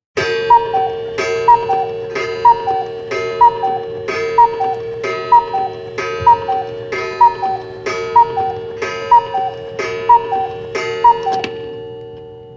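Cuckoo clock striking twelve: twelve strikes about a second apart, each followed by a falling two-note "cuckoo" call, over a ringing tone that dies away near the end.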